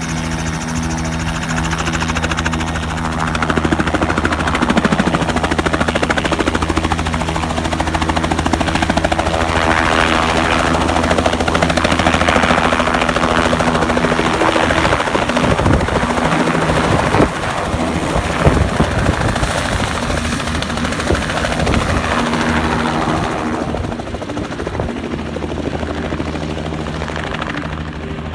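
Battery-electric modified Robinson R44 helicopter with its rotors beating loudly as it powers up and lifts off into a low hover. About 23 seconds in the sound drops and grows duller as the helicopter flies away down the runway.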